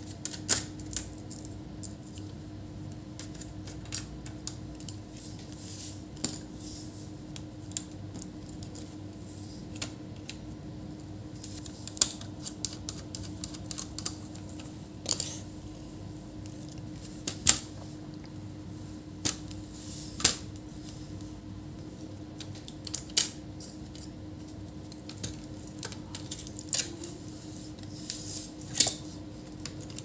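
Irregular sharp clicks and taps of a screwdriver and small screws against a laptop's metal and plastic chassis as the motherboard is unscrewed and lifted out, over a steady low hum.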